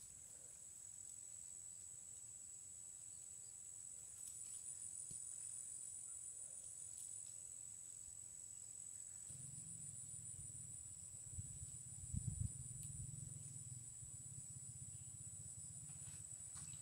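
Insects chirring in a steady high-pitched drone that pulses at times. A low rumble comes in about halfway, with a couple of dull thumps about twelve seconds in.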